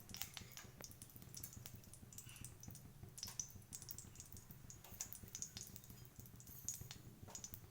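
Faint scattered clicks and light scrapes of a spoon working in a hot kadhai as ghee is added and spread around it, over a low steady hum.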